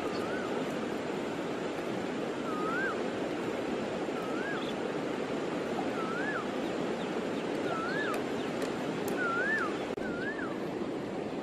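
Steady rushing of river water, with a bird repeating a short rising-and-falling whistle about once a second.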